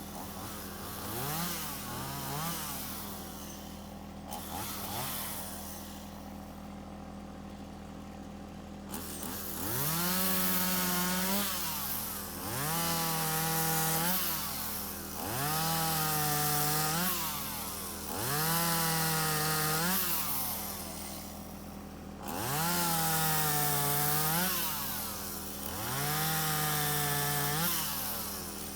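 Chainsaw engine: a few quick throttle blips, a stretch of idling, then revved up and held high six times, each rev a second or two long and dropping back to idle between.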